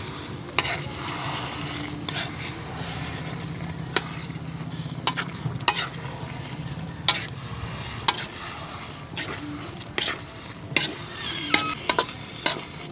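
A metal spatula stirs coconut milk and dried taro leaves in a large aluminium wok, clinking and scraping against the pan at irregular moments, more often near the end. A steady low hum runs underneath.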